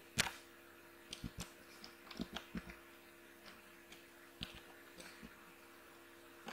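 Scattered clicks and taps of a computer keyboard and mouse: one sharp click just after the start, a quick cluster of taps over the next couple of seconds, then a few sparse ones. A faint steady electrical hum runs underneath.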